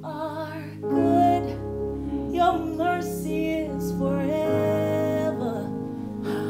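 A woman singing a worship song, a gospel-style ad-lib with vibrato and quick runs and one long held note about halfway through, over a keyboard accompaniment with steady held bass notes.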